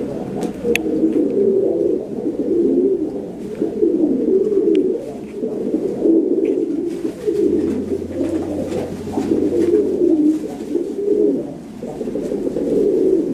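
Domestic pigeons cooing continuously, several low warbling coos overlapping with one another.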